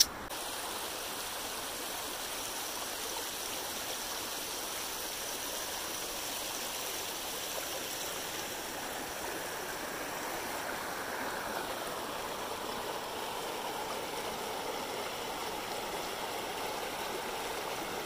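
A shallow, stony stream running steadily over rocks.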